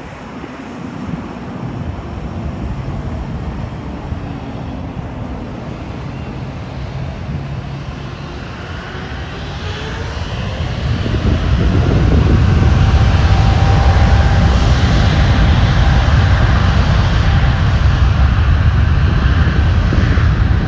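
A KLM Boeing 777-200ER's GE90 turbofan engines whine, with a tone that climbs in pitch. About eleven seconds in this swells into a loud, steady low rumble as the engines spool up to high thrust, as for the takeoff roll.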